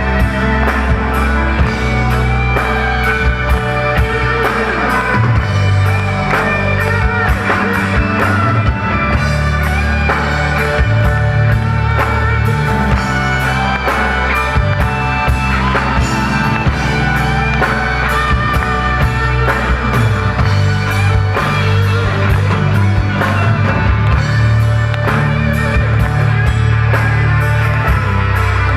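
Live rock band playing: electric guitar over bass and drum kit, with cymbals keeping a steady beat.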